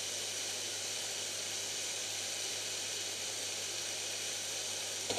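Veal schnitzels and sage potatoes frying in pans on a gas hob: a steady, even sizzle.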